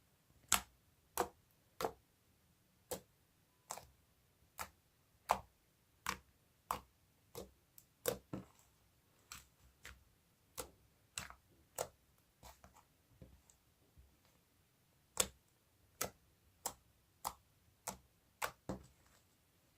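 Glossy slime being stretched and pressed by hand, giving short sharp clicks and pops at an irregular pace of about one or two a second, with a brief pause a little past the middle.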